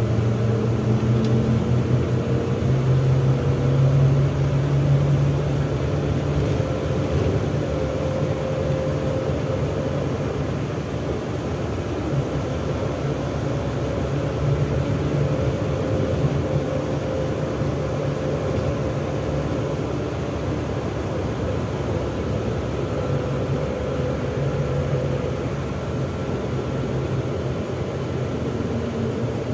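MAZ-103 city bus heard from inside the passenger cabin while driving: the engine's drone climbs in pitch over the first few seconds as the bus pulls on, then runs steadily over road and tyre noise.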